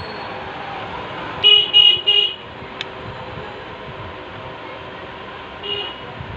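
A vehicle horn tooting three times in quick succession, then once more briefly near the end, over steady background noise.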